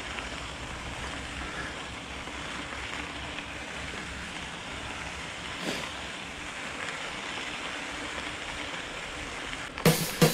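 Steady rushing noise of wind on the microphone and mountain-bike tyres rolling over a dirt trail, with a single light knock about halfway through. Drum-led music cuts in just before the end.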